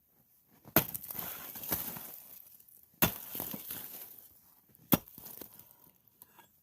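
A Pulaski axe chopping into hard-packed ice, three sharp strikes about two seconds apart. The first two strikes are each followed by a crunch of breaking ice.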